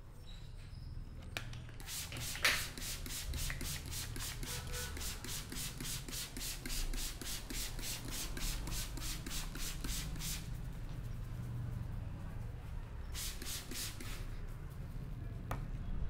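Hands rubbing briskly through damp hair on a scalp during a head massage: quick, even scratchy strokes, about five a second, in a long run and then a shorter one. There is one louder crack about two and a half seconds in.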